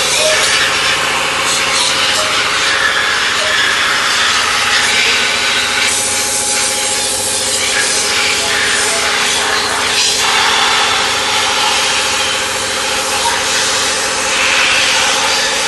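Power sander running steadily against a surface: a continuous rubbing hiss over a constant motor hum.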